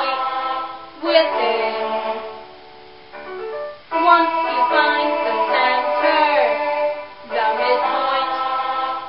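Young female voices singing along to a pop backing track, with a quieter lull about two to four seconds in before the singing comes back strongly.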